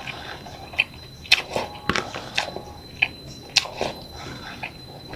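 Close-up eating sounds: mouth smacks and wet clicks of chewing a mouthful of white rice and boiled eggplant, coming irregularly a few times a second.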